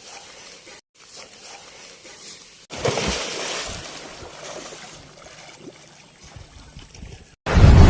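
River water splashing and sloshing around a moving ferry boat: a burst of splashing starts about three seconds in and slowly dies away. A loud rush of noise comes in near the end.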